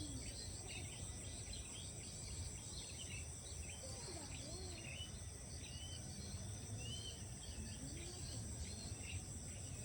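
Rice-paddy dawn chorus: a steady high trilling of insects with many short bird chirps scattered over it.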